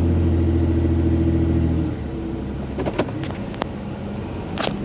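Car engine held at about 1,500 rpm in drive with the brakes on, steady under load, then dropping back to idle about two seconds in as the throttle is let off. A few light clicks follow near the end.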